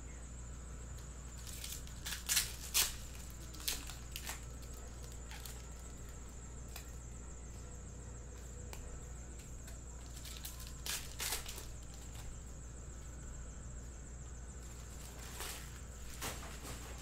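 Trading cards and foil card packs being handled on a table: short crinkles and clicks in small clusters, loudest a couple of seconds in and again around the middle, over a steady low hum.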